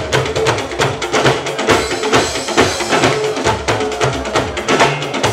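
Band music led by drums, with a quick steady beat of sharp strokes over held bass notes.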